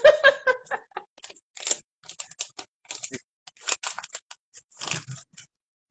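Irregular light taps and clicks of typing on a keyboard, coming in uneven runs, with a brief bit of voice at the very start.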